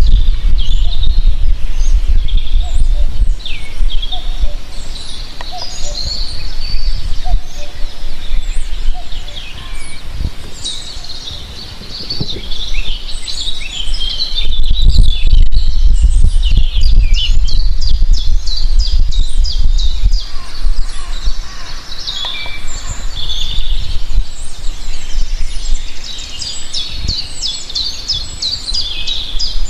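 Several small birds chirping and singing, with many quick high calls and trills overlapping throughout. A low rumble runs underneath, louder at times, such as around the middle.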